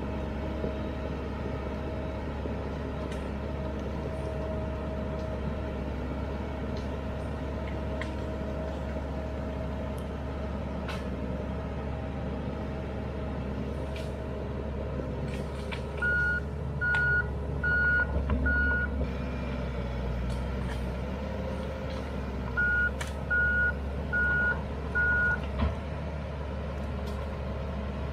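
Komatsu D31EX crawler dozer's diesel engine running steadily as it works. Its reverse alarm beeps four times just past the middle, and four more times a few seconds later.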